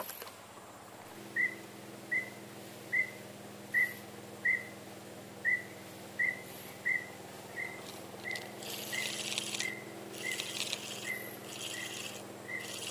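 An animal's short, high call repeated evenly, about once every two-thirds of a second, over a steady low hum. From about two-thirds of the way through, insects chirring in pulses join in.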